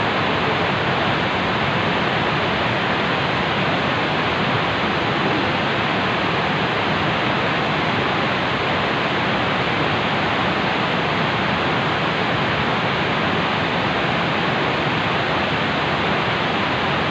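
Steady, even rush of fast-flowing river water at a dam, a constant wash of noise with no break.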